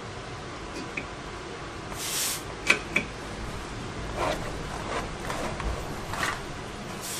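Leftover pinion bearing being worked out of a differential housing by hand: a brief scraping rush about two seconds in, two sharp clicks just after, then a few softer rubs.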